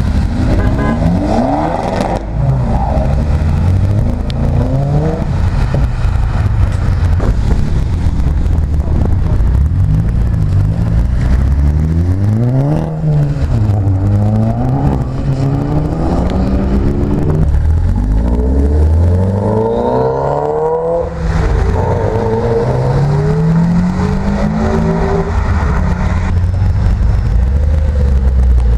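Tuned cars accelerating away one after another, engines revving up and dropping back as they change gear, over a steady low engine rumble.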